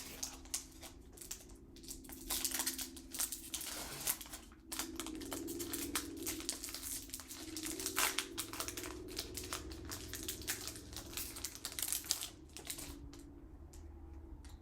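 A foil Pokémon TCG booster pack wrapper crinkling and crackling as it is handled and opened, with the clicks of cards being handled. It is a dense run of irregular crackles that thins out near the end.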